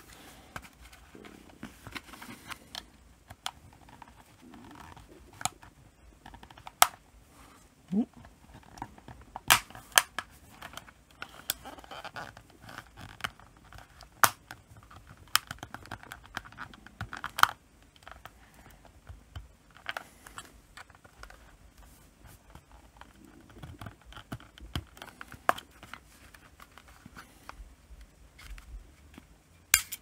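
Sony RMT2100 remote control's plastic case being worked open by hand: irregular sharp plastic clicks and light scraping, a click every second or two.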